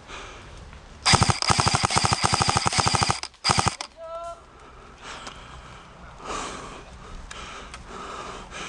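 Airsoft gun firing on full auto: a rapid, even rattle of shots lasting about two seconds, then a second, short burst.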